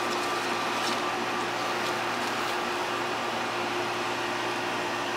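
A steady machine hum with a constant whoosh of moving air, unchanging throughout, like a running fan or air-conditioning unit.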